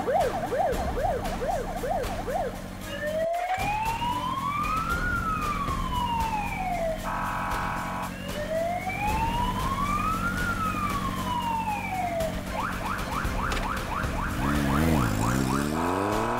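Police car siren cycling through its modes: a fast yelp, then two slow rising-and-falling wails, with a steady buzzing blast twice and another fast yelp. Near the end a low tone rises, like an engine revving.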